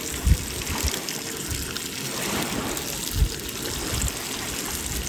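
Small waves lapping and trickling at the lake's edge, with a few short thumps of wind on the microphone, the sharpest one early and another about three seconds in.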